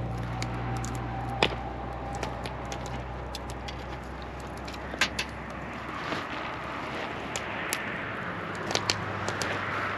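Wood fire crackling, with irregular sharp pops; the loudest come about a second and a half in, about five seconds in, and just before the end. A low steady hum runs underneath, dropping away for a couple of seconds in the second half.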